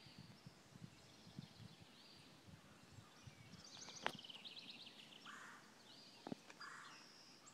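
Near silence outdoors, with faint small-bird chirps and trills in the background and two faint clicks.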